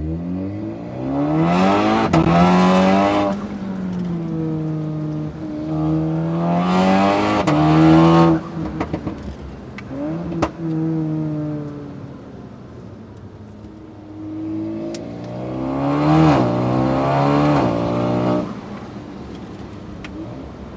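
Stage 3-tuned Škoda Octavia vRS 245's turbocharged 2.0-litre four-cylinder accelerating hard in three pulls. Each pull brings a rush of intake and exhaust noise and ends in a sudden drop as the DSG gearbox shifts up. The loudest pull comes about eight seconds in.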